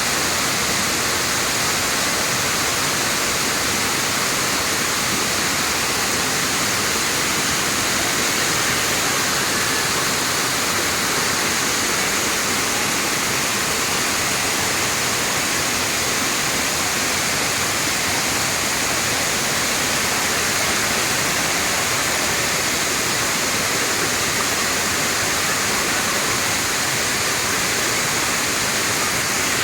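Waterfall: water rushing and splashing in a steady, unbroken roar of noise.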